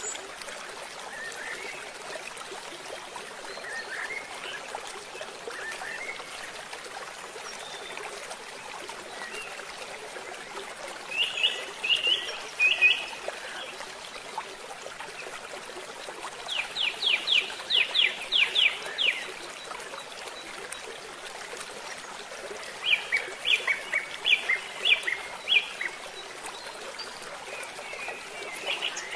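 River water flowing steadily, with a bird calling over it in three bursts of short, evenly spaced high chirps; the longest burst is a quick run of about ten notes.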